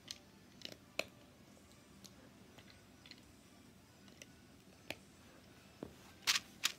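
Small plastic clicks of LEGO bricks being pressed onto a layer, scattered a second or so apart, with two louder, noisier bursts near the end.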